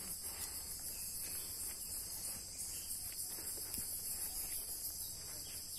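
Steady, high-pitched insect chorus with an even, shimmering pulse.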